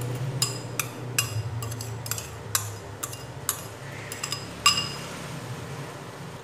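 A metal spoon clinking against a ceramic bowl as sugar is scraped out of it into a pot: a quick run of about a dozen light ringing clinks, the loudest a little before five seconds in. A steady low hum runs underneath.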